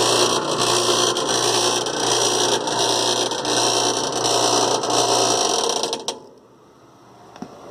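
Agitator washing machine running with a loud, harsh rattling noise that persists although its tub bearing and seals have just been replaced. The machine stops suddenly about six seconds in.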